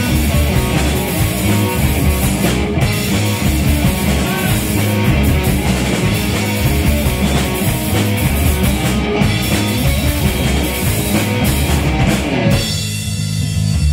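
Live rock band playing an instrumental passage between vocal lines: electric guitars, bass guitar and a drum kit with cymbals. Near the end the drums and cymbals drop out, leaving the guitar and bass.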